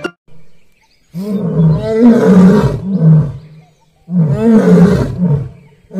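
Asiatic lion roaring: two long bouts of about two seconds each, with a third starting near the end.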